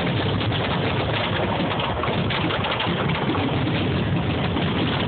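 Steady low rumble of a car engine and road noise, with no distinct bangs.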